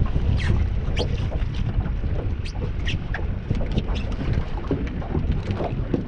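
Wind rumbling on the microphone over a small boat on choppy water, with irregular sharp slaps and splashes of water around the hull.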